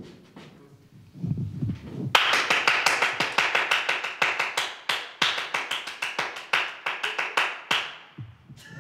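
A man's hand claps in a quick, uneven run of sharp claps, starting about two seconds in and lasting some six seconds, miming clashing machetes.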